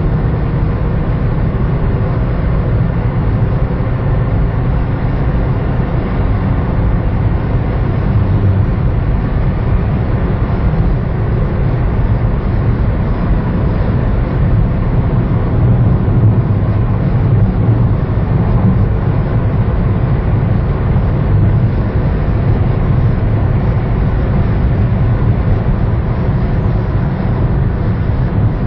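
Steady low rumble of a car driving at speed, with engine, tyre and wind noise heard from inside the cabin. The level stays even throughout, with no clear revving up or down.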